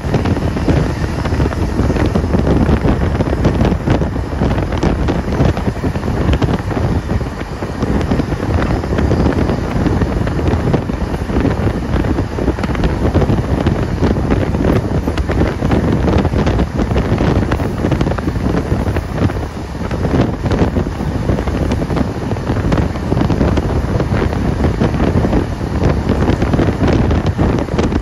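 Steam-hauled passenger train, locomotive 3801, running at speed, heard from onboard: a steady, heavy rush of wind over the microphone with the low rumble of the carriage and frequent short clicks and rattles from the running gear on the track.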